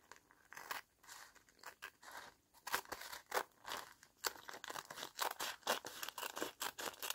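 Scissors cutting through a clear cellophane bag: a run of crisp, crackling snips, sparse at first and coming quickly after about two and a half seconds.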